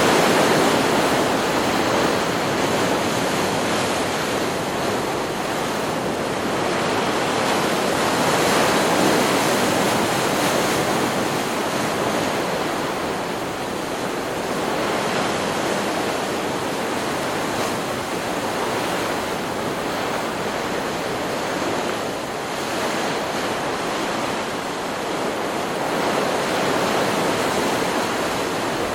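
Ocean surf: waves breaking and washing onto a beach, a continuous rush of water that swells and eases in loudness every several seconds.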